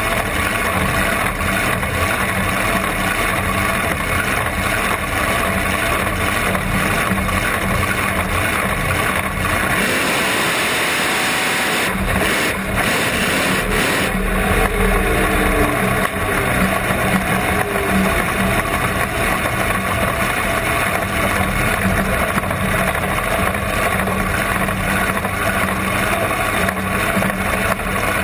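Supercharged big-block Chevrolet V8 of a blown alcohol dragster idling steadily, heard close up from on board the car.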